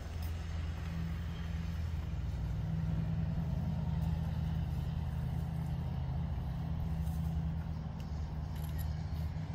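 Steady low rumble of an idling engine, slightly louder in the middle of the stretch.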